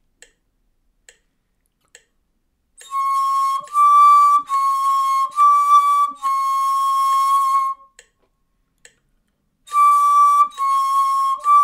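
Turkish ney, an end-blown reed flute, playing a slow practice exercise in a breathy tone. About three seconds in come four short notes that alternate between two neighbouring pitches, then a long held note. After a pause of about two seconds the same kind of phrase starts again near the end. Faint ticks sound in the quiet before the first notes.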